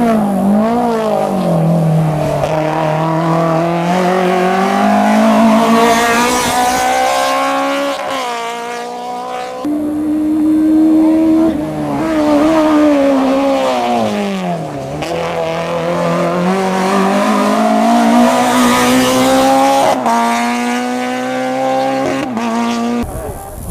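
Hill-climb race car engine at hard throttle, its pitch climbing in long pulls and dropping sharply several times as the driver shifts or lifts for corners. The sound cuts off abruptly near the end.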